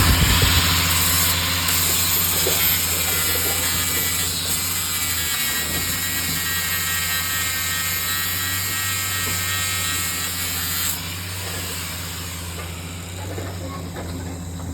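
Metal repair work on an excavator arm: a loud high hiss with a faint whine in it over a steady low machine hum. The hiss cuts off about eleven seconds in, and the hum stops right at the end.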